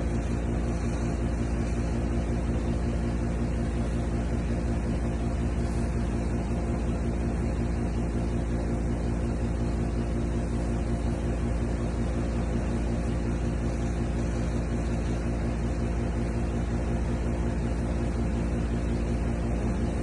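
Steady low machine hum that holds unchanged throughout, with no knocks or clicks over it.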